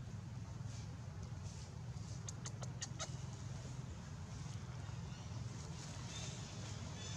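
A steady low outdoor hum, with a quick run of about five short, sharp, high animal calls a little past two seconds in, and fainter high chirps elsewhere.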